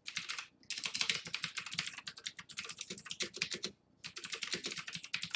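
Fast typing on a computer keyboard, a dense run of key clicks broken by two short pauses.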